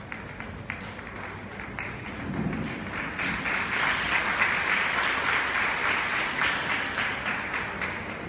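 Audience applause: a few sharp taps at first, swelling into steady clapping about three seconds in, then easing off near the end.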